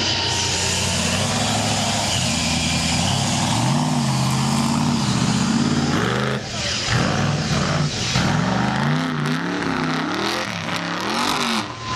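Mega mud truck's engine revving hard under throttle, its pitch climbing and falling over and over, with quicker, sharper rev swings in the second half.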